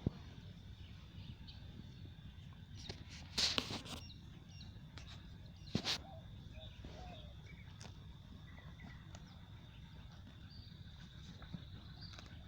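Rural outdoor ambience: a steady high insect drone over low wind rumble, with a few faint bird chirps. A brief rustling burst comes about three and a half seconds in, and a sharp click comes near six seconds.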